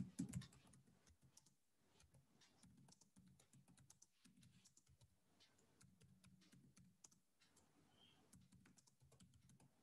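Faint typing on a computer keyboard: an irregular run of soft key clicks.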